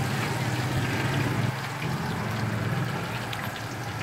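A steady low engine-like hum that eases off about a second and a half in, with a light crackle of oil frying in a pan.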